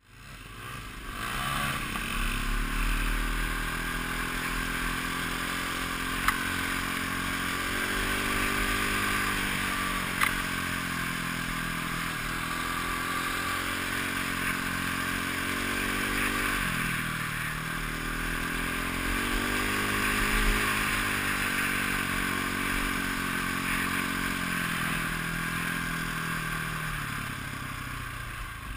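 KTM enduro motorcycle's engine, ridden and heard from a helmet camera, its pitch rising and falling again and again with throttle and gear changes. Two sharp knocks sound about six and ten seconds in.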